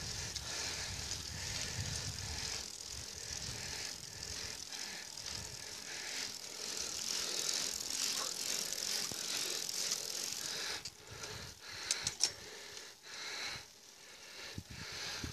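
Road bicycle rolling uphill on asphalt: a steady hiss of tyres and drivetrain, with the bike rattling. A few sharp clicks come about twelve seconds in.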